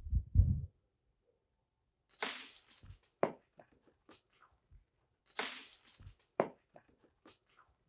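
Footsteps of several people crunching and scuffing over dry leaf litter and gritty ground, with a few low thumps at the start, two louder crunching scrapes about three seconds apart, and scattered small clicks. A faint, steady high insect trill runs underneath.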